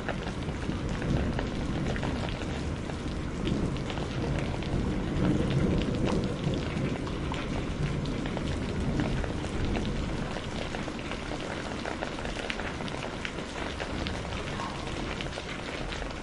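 Steady rain falling, with many individual drops spattering close by, and a low rumble of thunder swelling and fading from about four to seven seconds in.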